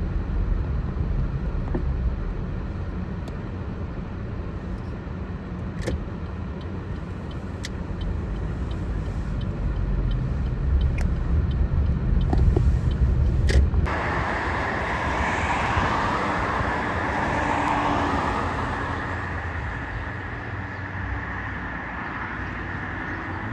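Road traffic: cars passing. The sound changes abruptly about fourteen seconds in, after which a steady high tone runs on under the traffic.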